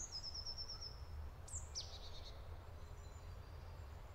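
Small woodland birds calling faintly: a short rapid high trill at the start, then a couple of quick downward-sweeping chirps about a second and a half in, over a steady low rumble.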